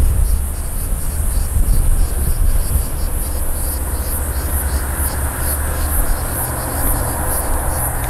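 Cicadas buzzing in a high, pulsing chorus, over a steady low rumble.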